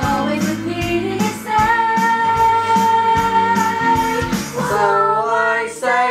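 A woman singing a pop song over backing music, holding one long note through the middle before the melody moves on.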